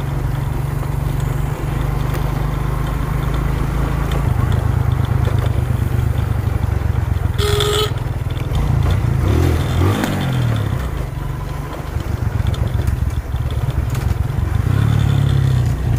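Motorcycle engine running as it is ridden, getting louder about four seconds in. A short horn beep sounds about halfway through.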